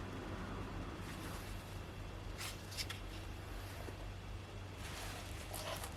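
A few short scratchy clicks and rustles over a steady low hum.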